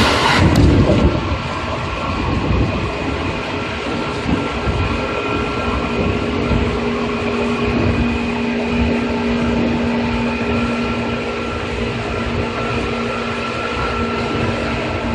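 Seibu 2000 series electric train running: a steady rumble of wheels on rail with a steady motor hum. A louder rush drops off sharply about half a second in, and the low hum grows stronger about six seconds in.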